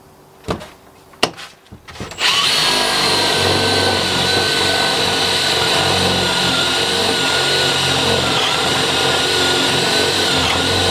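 A few sharp clicks, then a cordless drill starts about two seconds in and runs steadily with a high whine, boring a hole through the timber gate rail for the handle's pin.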